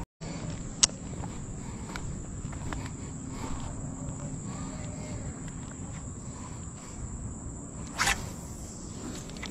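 Insects droning in a steady, high-pitched chorus, with a sharp click about a second in and a short, louder noise near the end.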